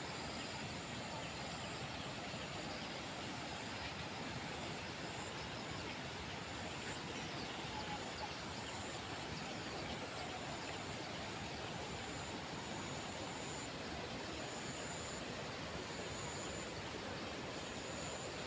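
Steady outdoor background noise, an even hiss, with a thin high-pitched tone that cuts in and out every second or two.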